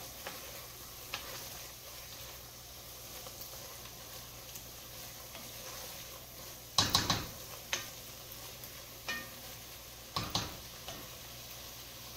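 Vegetables and tomato paste sizzling in an enamelled cast-iron Dutch oven while a wooden spoon stirs them, with a quick run of spoon knocks against the pot about seven seconds in and a couple more a little after ten seconds.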